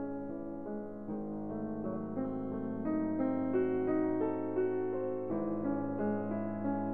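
Background piano music, with held notes and chords changing every half second to a second.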